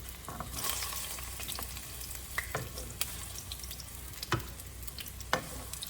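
Ripe plantain slices frying in a pan of hot fat: a steady sizzle broken by occasional sharp clicks and pops.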